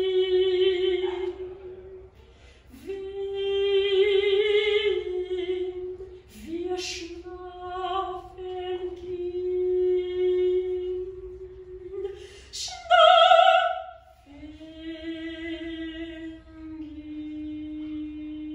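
Solo soprano singing unaccompanied: long held notes in slow phrases with short breaks between them, and a sudden loud high note about thirteen seconds in, before a long held lower note.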